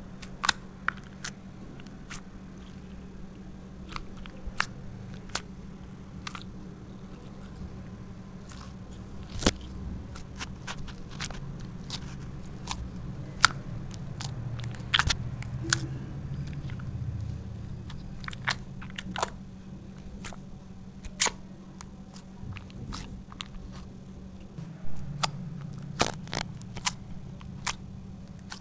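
Slime being kneaded, squeezed and poked by hand, with irregular sharp clicks and pops as air is squeezed out, over a steady low hum.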